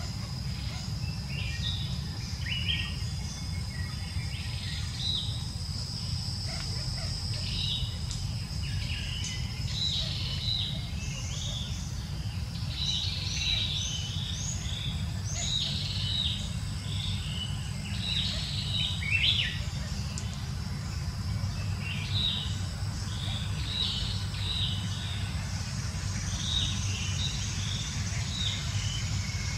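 Many short, high bird chirps, with a steady high-pitched insect whine through the first third, over a steady low rumble.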